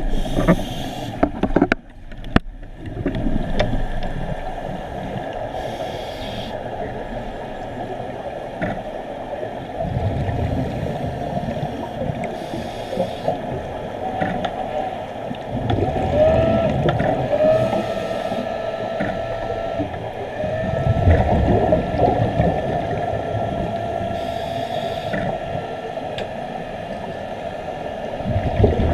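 Scuba breathing through a regulator, heard underwater: a hiss of inhalation every six or seven seconds, each followed by a louder rumbling gush of exhaled bubbles. A few brief squealing tones are heard around the middle.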